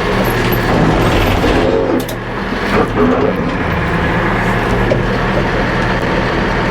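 Tractor engine running steadily under load as the front loader bucket digs into a pile of dirt and manure, with a few knocks and clunks.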